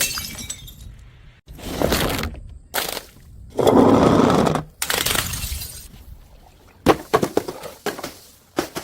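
Glass bottles smashing, several separate crashes one after another, each followed by shards clattering and tinkling away. The loudest and fullest crash comes a little before halfway, and a quick run of sharp clinks follows near the end.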